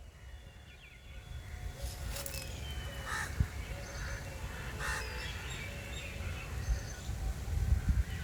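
Crows cawing a few times, with thin chirps of smaller birds and a steady low background rumble.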